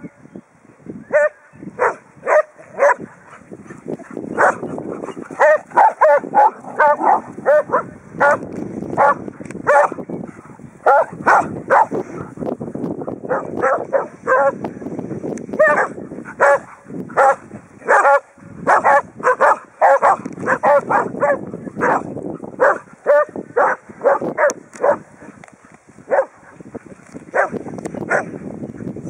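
Bearded collies barking in play: runs of short barks, often several a second, with only brief pauses.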